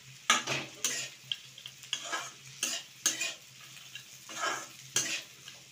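Metal spatula scraping and stirring diced vegetables, peanuts and scrambled egg around a metal kadai as they stir-fry, in quick irregular strokes of about one or two a second, with a lull near the middle.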